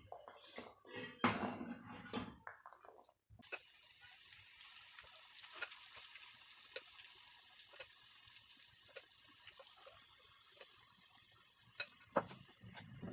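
Pakora batter deep-frying in hot oil in an iron karahi: a faint, steady sizzle with many small pops and crackles. A few knocks of pot and utensils come in the first two seconds, and two sharper clicks come near the end.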